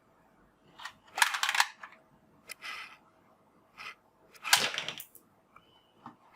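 Toy revolver clicking, in about six short bursts of sharp mechanical clicks with pauses between them. The loudest bursts come about a second in and about four and a half seconds in.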